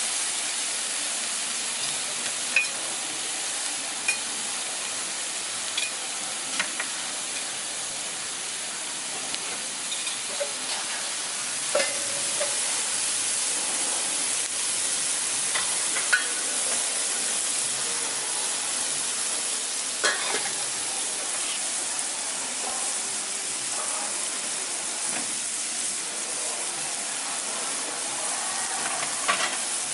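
Meat slices sizzling in oil on a steel teppanyaki griddle, a steady hiss, with a few sharp clicks of a metal spatula on the plate.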